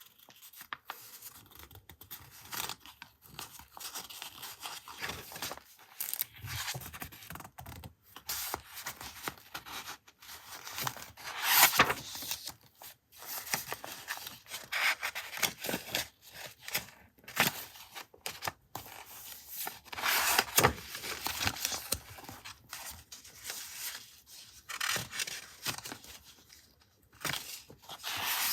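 Paper being handled for a collage journal: irregular short rustles, rubs and scrapes, with a louder stroke about twelve seconds in and another around twenty seconds.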